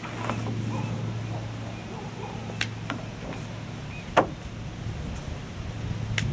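A few sharp knocks and slaps from a kung fu form on a wooden deck: hands and feet striking the boards and the body during the movements, the loudest about four seconds in. A steady low hum runs underneath.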